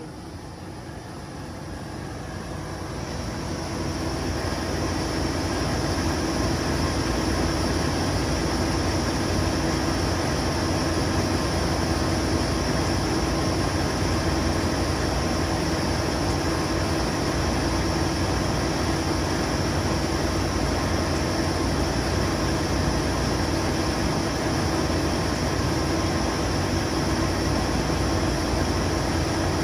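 Giddings & Lewis 25V CNC vertical machining center running: a steady mechanical hum with a hiss above it. It grows louder over the first few seconds, then holds steady.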